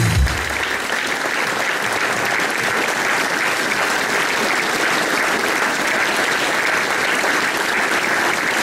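Audience applauding steadily, with a brief low thump at the very start.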